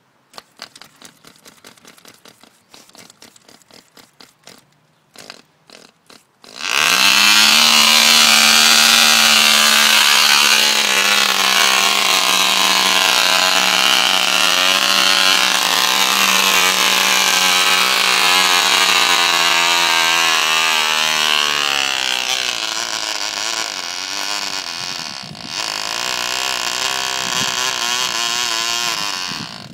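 A small Cox model engine in a toy tractor. Scattered clicking as it is worked by hand, then it starts abruptly and runs at a loud, high, steady buzz, easing slightly lower in pitch. It falters briefly near the end, picks up again, and then cuts out.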